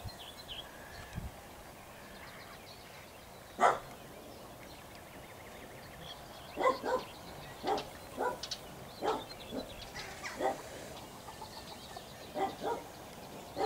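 A dog barking: one loud bark about four seconds in, then a run of short barks, often in pairs, from about six and a half seconds on.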